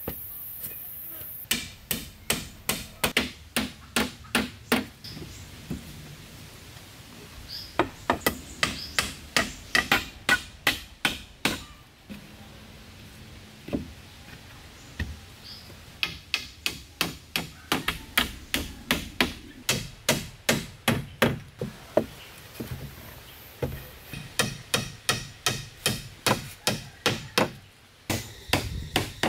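A hand tool striking wood over and over, in four runs of quick, sharp blows about three a second, with short pauses between runs.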